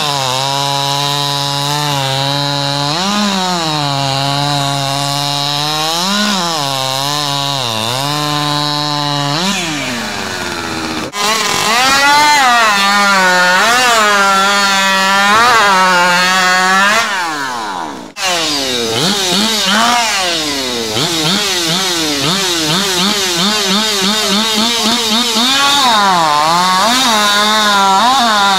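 Small chainsaw engine running, revved up and down over and over, with two abrupt breaks in the sound.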